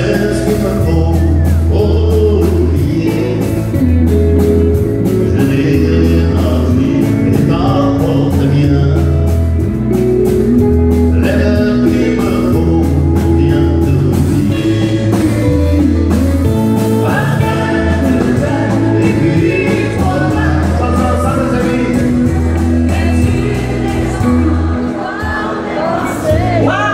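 Live country-western band playing a song, with singing over acoustic guitar, keyboards, drums and a steady bass line.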